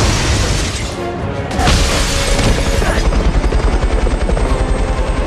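Film soundtrack: a helicopter's rotor chopping in a steady, rapid beat from about a second and a half in, mixed with music.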